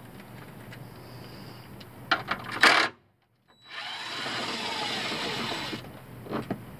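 A power tool with a 10 mm socket whirring steadily for about two seconds, spinning out a bolt of the truck's plastic underbody cover. A few sharp metallic clicks and a clatter, the loudest sound, come about two and a half seconds in, and a single click near the end.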